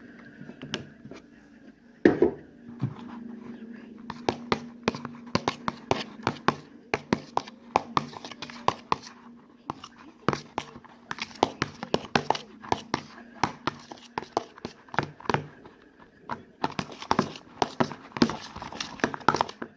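Fuzzy slime being squished and stretched by hand, giving many irregular clicks and pops over a faint steady hum.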